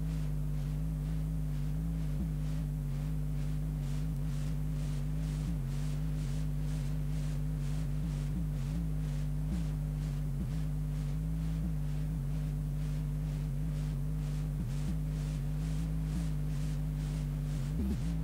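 Steady electrical hum, with a faint regular ticking about two to three times a second.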